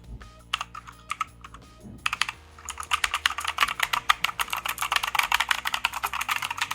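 Typing on a Redgear Shadow Blade (MK853) mechanical keyboard with clicky blue switches, which the owner takes for Omron blues. A few separate keystrokes come first, then fast continuous typing from about two and a half seconds in.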